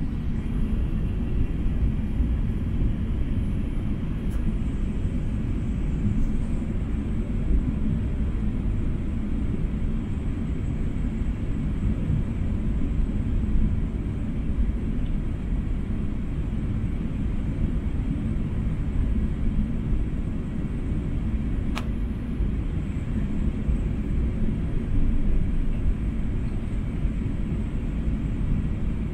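Steady low rumble of an Airbus A380 airliner in flight, heard from inside the cabin, with one faint click about three-quarters of the way through.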